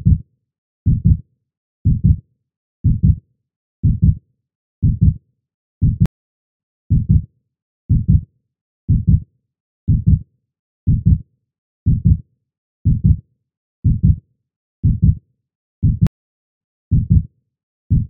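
Heartbeat sound effect: a steady low double thump, lub-dub, about once a second.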